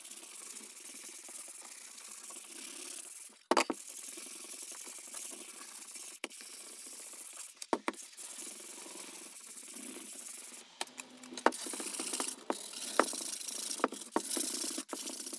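Elm seat top being hand-sanded with sandpaper: a steady scratchy rubbing of the paper on the wood, broken by a few sharp knocks of the board on the bench. The strokes grow louder and more uneven in the last few seconds.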